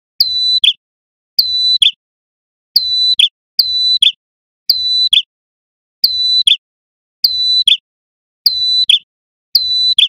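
Male ashy tailorbird singing loudly, repeating one short call about nine times, roughly once a second: each a steady high whistle that ends in a sharp, lower note.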